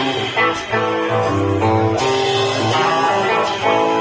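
Live rock band playing an instrumental passage: strummed guitars over bass and drums, with a cymbal-like stroke about every one and a half seconds.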